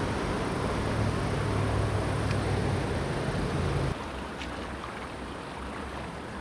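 Wind rumbling on the microphone over the steady rush of river water; the rumble stops abruptly about four seconds in, leaving the water.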